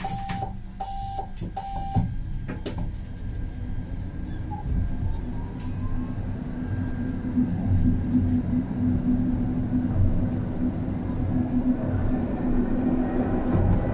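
Brest tram's door-closing warning: three short high beeps in the first two seconds, then the tram pulls away, its motor hum and wheels on the rails growing steadily louder, with a faint rising whine as it gathers speed.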